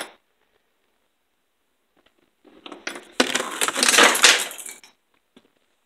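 Small metal tools and parts clattering and jingling against each other for about two seconds, starting a little before halfway through, with a few faint ticks afterward.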